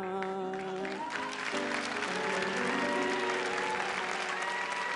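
A song ends on a held final note with the band. About a second in, a studio audience bursts into applause while the band plays on under it.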